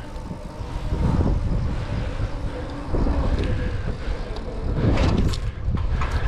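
Wind noise on the microphone and tyre rumble from a 700c single-speed bike ridden fast over a concrete path, getting louder about a second in and again about three seconds in. A few sharp knocks come around five seconds in.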